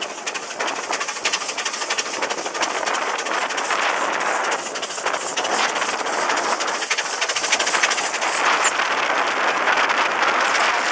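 Small steam traction engine running along the road: a rapid, steady chuffing clatter with hiss. A run of short high squeaks, about three a second, comes in for a few seconds in the middle.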